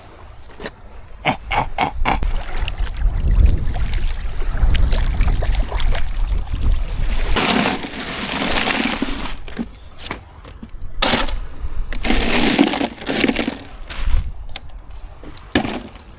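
A string of sharp knocks and cracks, then two spells of sloshing water, with a low rumble of wind on the microphone.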